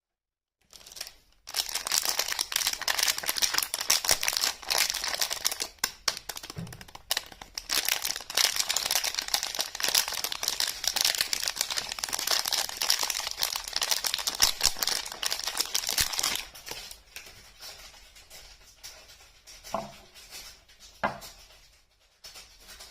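Wrapper on a soap bar being torn open and crinkled by hand, a dense crackling that stops about sixteen seconds in. Quieter handling follows, with two light taps near the end.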